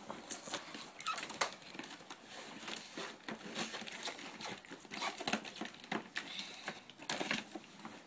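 A cardboard toy box and loose plastic pieces being handled: irregular rustling and crinkling with many small clicks and knocks.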